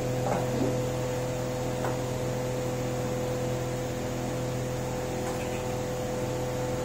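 A steady electrical hum with a constant low tone, unchanging throughout.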